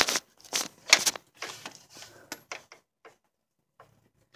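Ratchet and 32 mm socket clicking and scraping on the oil filter housing cap: several sharp, irregular knocks in the first three seconds, then a few faint ticks as the socket is set on and the cap loosened.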